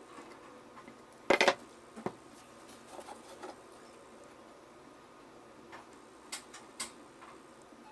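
Wooden boards and a glue bottle handled on a wooden workbench: a short clatter of knocks about a second and a half in, then a single knock and a few light taps and clicks.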